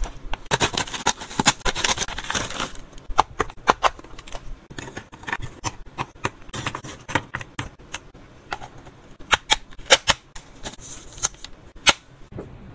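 Plastic pouch crinkling, then a long series of sharp clicks and light taps as freeze-dried yogurt treats are handled with tongs and set into a hard clear plastic box. One loud click comes near the end.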